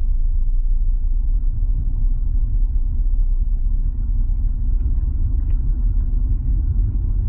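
Steady low rumble of a four-wheel-drive vehicle driving along a snow-covered lane, heard from inside the cabin: the engine running and the tyres rolling through packed snow ruts.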